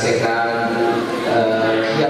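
A man chanting a melodic recitation into a microphone, holding long notes that step up and down in pitch, in the manner of Qur'anic recitation.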